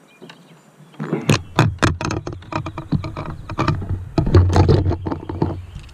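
A rapid, irregular clatter of knocks and thumps on the plastic kayak, starting about a second in and dying down near the end, as a freshly caught smallmouth bass is unhooked and handled.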